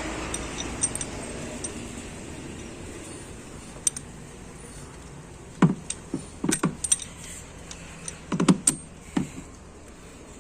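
Metal hand tools clinking and knocking while the clamp bolts of a diesel injector are undone with an M8 injector-bolt tool: a few sharp clinks in clusters, over a steady background noise.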